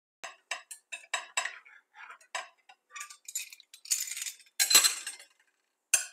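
Metal utensils clicking and scraping against a pan and plate as a slice of pan-fried grated potato and egg is cut and lifted out. A quick run of sharp clicks at first, then longer scrapes about halfway through, and one more clink near the end.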